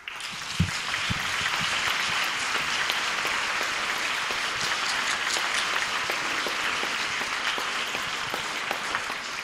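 Audience applauding: dense, steady clapping that starts abruptly and begins to die down near the end.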